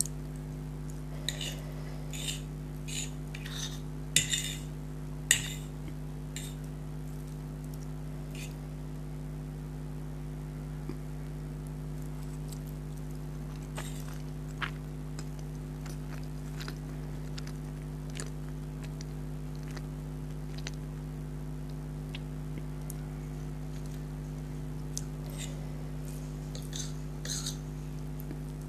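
Someone eating noodles: cutlery clicking and clinking against a plate along with chewing, in a cluster of sharp clicks near the start, a few scattered ones in the middle, and another cluster near the end. A steady low hum runs underneath.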